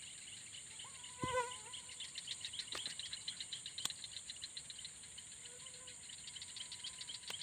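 Night insects: a steady high-pitched cricket drone with a fast, pulsing chirp over it. About a second in comes a brief thump with a short pitched call, and there are a couple of sharp clicks later.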